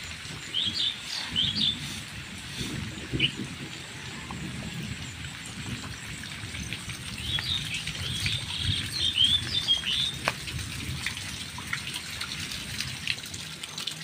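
Steady rain on a waterlogged yard with birds chirping: a cluster of chirps near the start and another from about seven to ten seconds in, over a low rumble.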